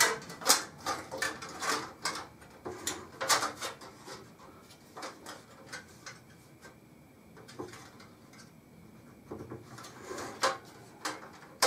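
A PC motherboard I/O shield being lined up and pushed into the case's rear opening: scattered metal clicks, scrapes and taps, busiest in the first few seconds and again near the end, with a quieter stretch in between.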